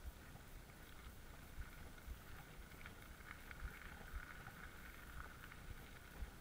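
Mountain bike rolling over a gravel path: a steady low rumble of the tyres and bike, with scattered small knocks as it goes over bumps.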